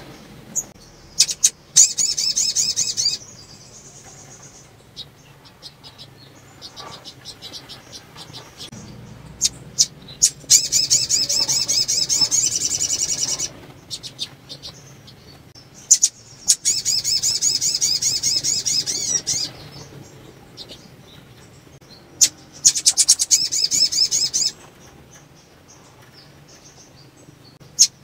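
A caged female sunbird (sogon) giving four spells of rapid, high-pitched twittering, each about two to three seconds long, with faint chips between them. This is the call of a female in breeding condition, which keepers use to stir males into song.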